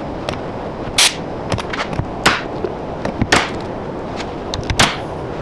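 Nail gun firing staples into OSB board four times, one to one and a half seconds apart, tacking the nesting-box walls together, with a few fainter clicks between the shots.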